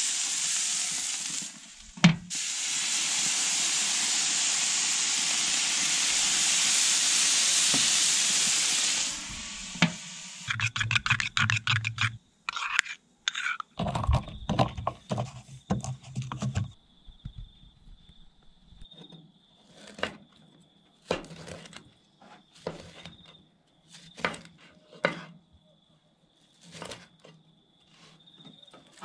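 A whole head of broccoli sizzling on a gas grill's hot grate, a steady hiss for several seconds. Then a mortar and pestle grinding in quick repeated strokes, followed by a knife chopping the charred broccoli on a wooden board in short scattered knocks.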